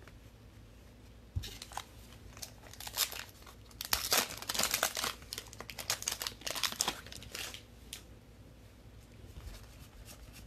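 Plastic wrapper of a Donruss football trading-card pack crinkling and tearing as it is opened by hand, in a run of quick crackles that is busiest in the middle.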